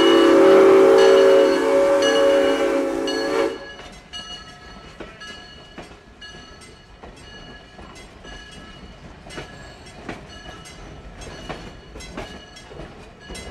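Steam locomotive whistle blowing a loud, steady chord of several tones over a hiss of steam, cutting off sharply about three and a half seconds in. Then the passenger coaches' wheels click over the rail joints as the train rolls past.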